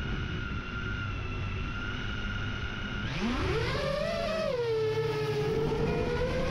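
A drone's electric motors and propellers whining steadily while it sits armed. About three seconds in, the pitch rises sharply as the throttle comes up for takeoff, swells and dips, then settles into a higher steady whine in flight.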